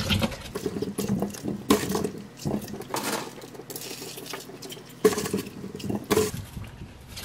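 Coarse sea salt pattering and hissing down onto green plums in a glazed earthenware jar, with irregular knocks and clicks as plums are dropped onto one another against the jar.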